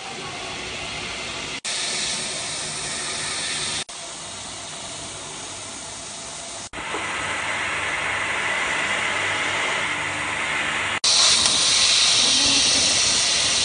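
Steady hiss of a 280 W laser cutter's air assist blowing at the cutting head as it cuts through thick plywood. It breaks off for an instant four times and is loudest and highest in the last few seconds.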